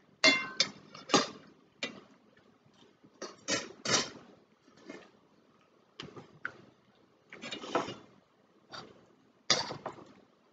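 Metal spoons and forks clinking and scraping against ceramic plates and a serving bowl during a meal. The sounds come as irregular sharp clinks, a few with a brief ring, and one longer scrape a little before the eight-second mark.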